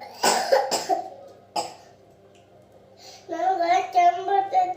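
A child coughing three or four times in quick succession, a cold cough with phlegm, then after a short pause a child's voice drawn out at a steady pitch.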